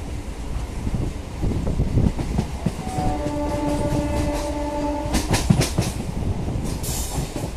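Electric local train running on the rails, its horn sounding one steady note for about two seconds near the middle, followed by a quick run of clacks from the wheels over rail joints.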